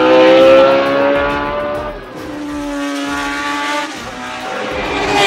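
Tyrrell P34's Ford Cosworth DFV V8 racing engine accelerating hard. The pitch climbs through each gear, with upshifts about two seconds in and again about four seconds in, each dropping the pitch before it rises again.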